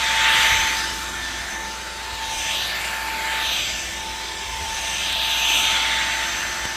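Cordless stick vacuum running over carpet: a steady high motor whine with a rushing of air that swells and fades every second or two as it is pushed back and forth.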